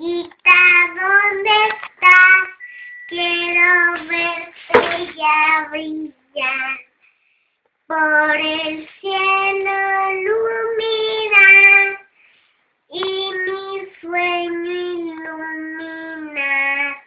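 A young girl singing unaccompanied, in short sung phrases with brief pauses between them, including two longer breaks of about a second.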